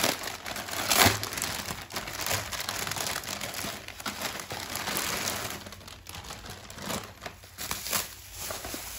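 Grey plastic courier mailer bag being opened and crumpled by hand, with dense crinkling that is loudest in the first few seconds. Near the end it gives way to sparser rustling as bubble wrap is handled.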